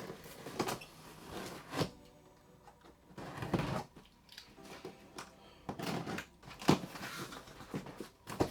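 Cardboard TV box being opened and its packaging handled: irregular knocks, scrapes and rustles, with a sharp knock about two-thirds of the way through.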